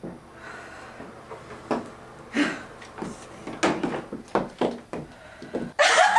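Knocks and clicks from a bathroom door and light switch being handled, with footsteps, in a small tiled room: a run of short separate knocks. A sudden loud burst of sound comes just before the end.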